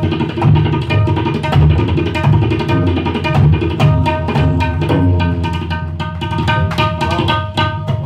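Tabla played solo: a fast run of ringing strokes on the treble drum (dayan) over deeper bass strokes on the bayan.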